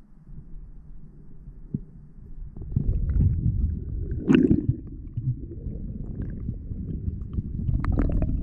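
Muffled low rumbling and knocking from a GoPro in its waterproof housing as a spearfisher moves through the water. It grows louder about two and a half seconds in, with a sharper knock near the middle and several more near the end.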